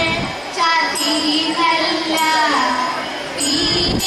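Thiruvathira song sung by girls' voices in unison, in held, gliding phrases of a slow melody.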